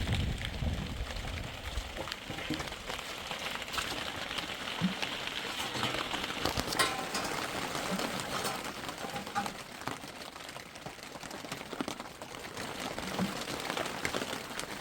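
Rain falling: a steady hiss with scattered small drop ticks. Low wind rumble on the microphone fades out in the first two seconds.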